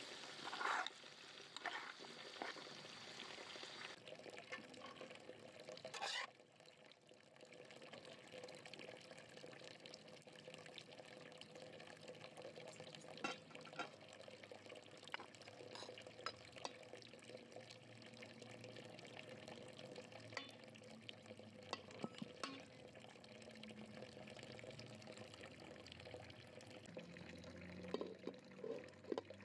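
Chicken frying in a pan and stirred with a metal spoon, a sizzling hiss that stops about four seconds in. After that, quiet scattered clinks of a metal slotted spoon against aluminium pots as rice and potatoes are dished out, with one louder knock about six seconds in.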